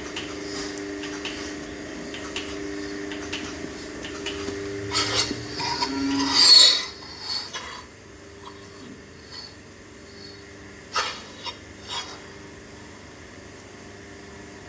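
Milking machine running: a steady hum with faint regular clicking, and a louder stretch of hissing and metal clatter about five to seven seconds in, then a few sharp clicks.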